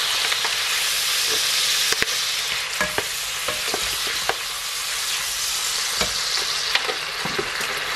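Diced beef sizzling steadily in a hot non-stick wok, with scattered clicks and scrapes of a plastic slotted spatula stirring it.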